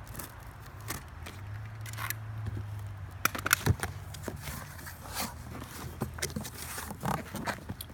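A large cardboard box of fireworks being opened and its contents handled: scattered scrapes, rustles and light knocks, with a few sharper clicks around the middle.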